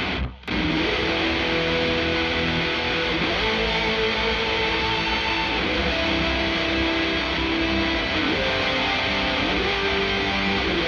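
Distorted heavy-metal rhythm guitar with a lead guitar playing long held notes and slides on top, both played through a Blackstar 6L6 valve head into a Celestion Vintage 30 8-ohm speaker in a 1x12 cabinet, miked with no EQ or compression. There is a brief break about half a second in, where the rhythm-only section gives way to rhythm plus lead.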